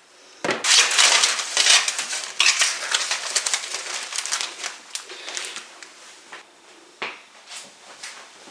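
Kitchen dishes and utensils clattering while being handled: a busy run of clinks and knocks for about four seconds, then a few scattered knocks.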